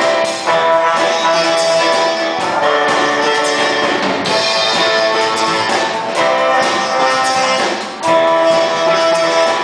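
Music with guitar: sustained chords that change about every two seconds.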